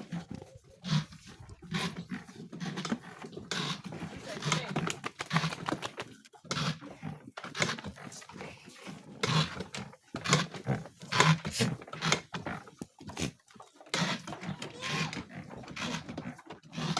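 Goats moving about in a pen during spraying, with irregular knocks and scuffles throughout and voices in the background.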